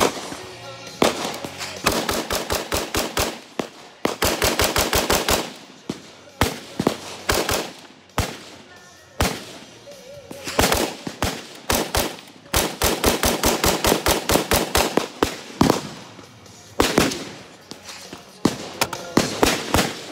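AR-15 rifle with an upgraded drop-in JMT Tactical trigger firing rapid strings of shots, about eight a second at the fastest, with single shots and short pauses between the strings.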